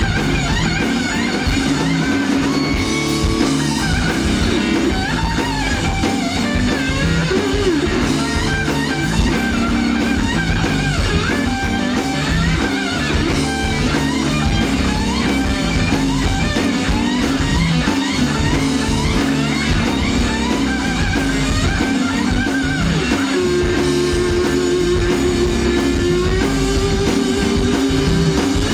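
Live blues-rock band playing an instrumental passage: electric guitar lead with many bent notes over bass guitar and a drum kit. A long held, wavering note comes in near the end.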